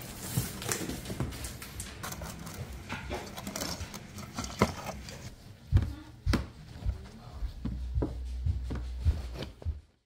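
Rustling and knocking from handling a cardboard box and folding a fabric tree skirt into a plastic storage bin, with several sharp knocks, the loudest around six seconds in.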